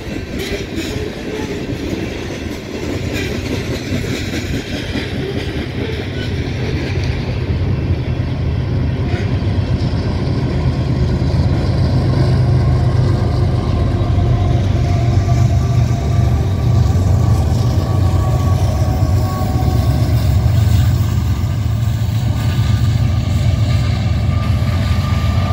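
Coal train passing: loaded hopper cars rolling by with wheel clatter, then the steady low drone of the BNSF diesel locomotives at the rear of the train, which grows louder as they go by.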